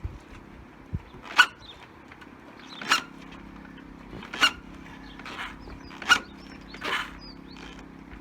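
Short squeaks, about one every second and a half, as the rear wheel of a 1984 Honda V65 Magna is turned by hand in gear, rotating the engine with its spark plugs out. The engine is turning over and is not seized.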